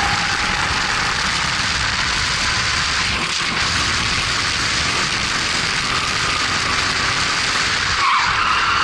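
Racing kart's four-stroke engine running at speed under heavy wind noise on the onboard microphone, its note rising about eight seconds in as the kart accelerates.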